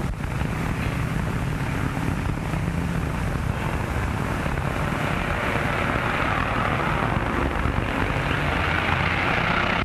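An old car's engine running steadily, a low rumble with a hiss over it that grows somewhat louder over the second half.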